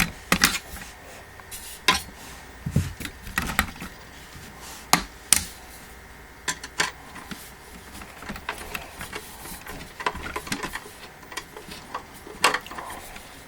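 Irregular clicks and knocks of a screwdriver and steel support being worked against wooden panels while screws are adjusted.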